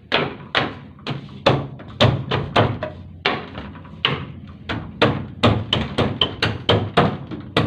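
Feed-trough section of a knock-down sheep pen being knocked into place, a quick, uneven string of hard knocks, about three a second.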